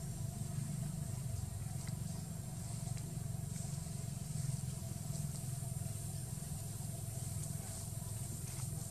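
Steady low rumble, even in level, with a few faint light ticks above it.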